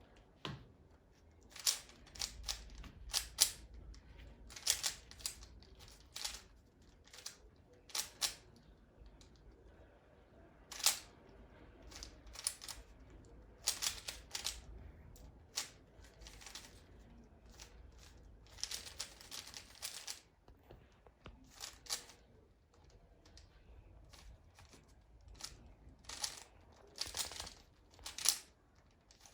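Plastic Rubik's cube being turned rapidly by hand during a timed solve: irregular sharp clicks and clacks of the layers snapping round, sometimes single, sometimes in quick runs of turns.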